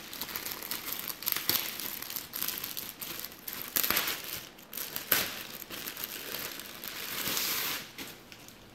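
Thin clear plastic wrapping crinkling and crackling as hands pull it back from a fabric bag, in irregular fits with a few sharper crackles. It dies down near the end.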